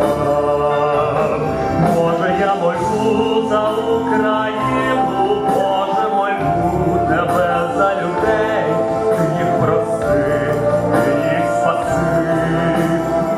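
A man singing a worship song into a handheld microphone over backing music, amplified through the hall's sound system, with long held notes that waver in pitch.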